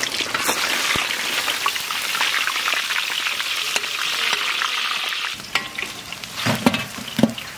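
Katla fish frying in hot mustard oil in an iron kadai: a dense sizzling and crackling for about five seconds, which stops abruptly. A few soft knocks follow near the end.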